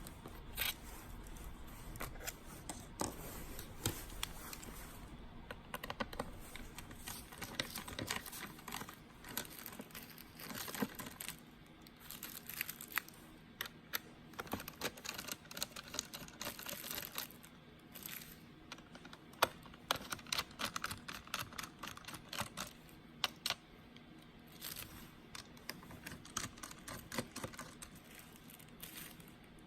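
Irregular light clicks, taps and rustling from hands working on a laptop.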